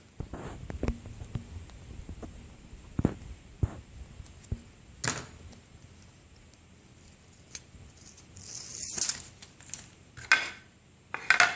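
Hands working metal foil tape onto a 3D-printed plastic part: scattered light taps and clicks, with a brief rustle of the tape about eight and a half seconds in.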